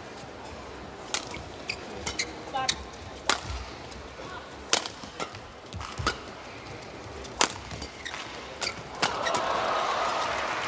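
Badminton rally: the shuttlecock is struck by rackets in sharp cracks about once a second. Near the end, crowd noise swells up.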